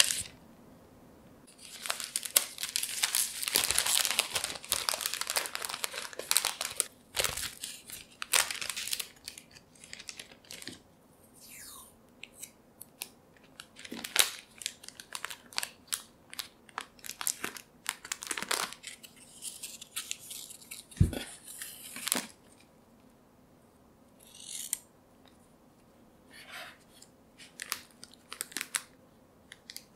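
Clear plastic cookie bag crinkling and rustling as it is handled, filled and folded shut. It comes in two long dense stretches, one early and one about two-thirds through, with many short crackles between and after, and a single soft thump about two-thirds through.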